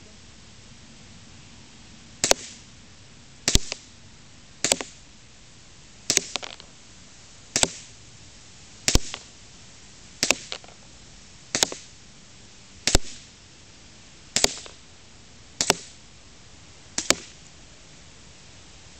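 WE M9 Cutlass gas blowback airsoft pistol firing twelve single shots, about one every second and a half, each a sharp crack; several are followed closely by a smaller second click.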